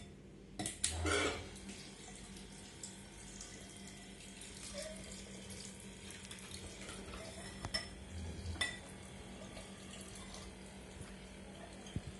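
Water running from an electric bottle-dispenser pump's spout into a glass fishbowl, a faint steady trickle with the small pump humming low underneath. A few light knocks against the glass and bottle, the clearest about a second in and again around eight seconds in.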